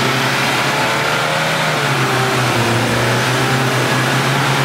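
Four-wheel-drive vehicle engine running at a loud, steady drone, with fainter higher engine notes that waver and dip about halfway through.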